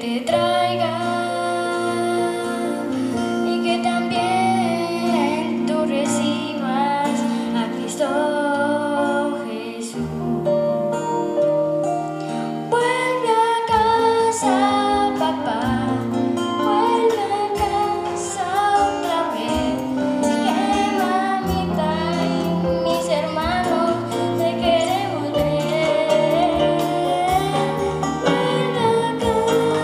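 A child's voice singing a song into a microphone over instrumental accompaniment.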